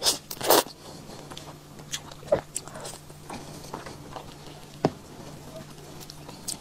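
Close-up mouth sounds of eating soft, ripe mango flesh: a wet bite and slurp right at the start, then quieter chewing with a few small sharp clicks.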